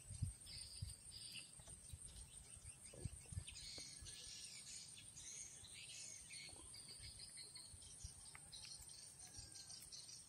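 Faint high-pitched twittering chirps of swiftlets, coming in short quick runs again and again, over a thin steady high whine, with a few low bumps on the microphone.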